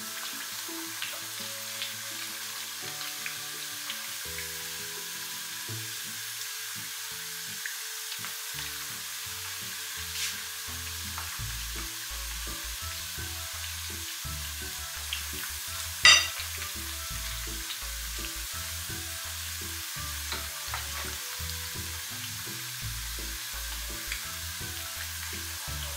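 Battered banana fritters deep-frying in hot oil, a steady sizzle with small crackles as more batter is drizzled in and the pieces are turned. One sharp clack about two-thirds of the way through.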